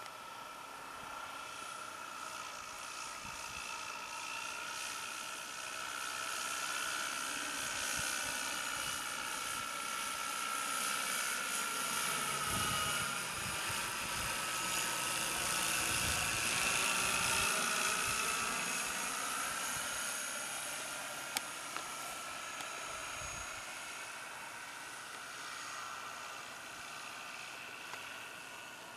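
Motor and propeller of a radio-controlled scale model of a Demoiselle monoplane, a steady high whine in flight that grows louder as the plane passes overhead, its pitch bending with the pass, then fades away.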